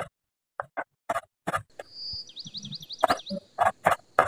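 Kitchen knife slicing large red chillies on a wooden chopping board: about ten sharp taps of the blade striking the board, at an uneven pace. A bird chirps a quick run of repeated high notes about two seconds in.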